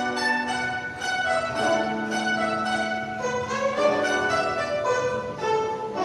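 Guzheng ensemble playing a five-part arrangement: many plucked zithers sounding melody and harmony together, with a held low note under the first half and ringing, overlapping plucked notes above.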